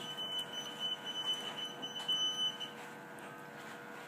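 A high-pitched electronic alarm tone, pulsing rapidly, that cuts off about two and a half seconds in. A faint steady equipment hum runs underneath.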